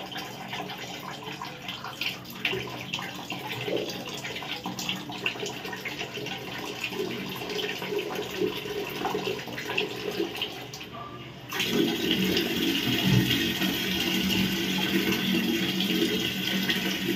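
Pliers and a screwdriver click and scrape against a rusted tap's bonnet nut as it is worked loose bit by bit. About two-thirds of the way in, a louder, steady rush of running water sets in suddenly.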